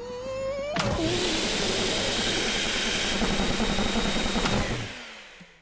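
Cartoon vacuum cleaner switched on: a loud, steady rushing noise starts about a second in and dies away near the end.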